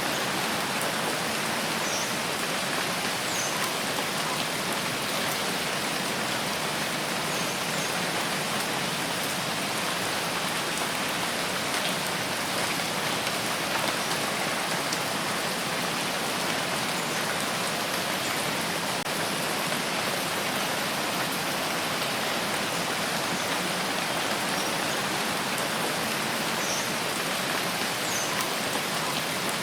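Steady rain falling, an even, unbroken hiss of drops on surfaces.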